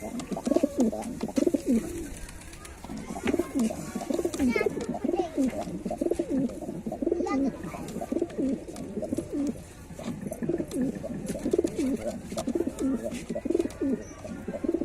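Several white domestic pigeons cooing continuously, their low, rolling coos overlapping one another.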